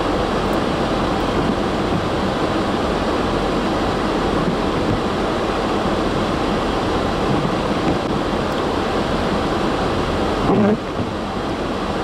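Strong blizzard wind rushing steadily and buffeting the microphone. It swells briefly about ten and a half seconds in, then settles a little quieter.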